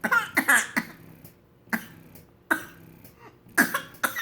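A baby hiccuping: a string of short, sharp hiccups about a second apart, the first few bunched together with a fussy, whimpering voice.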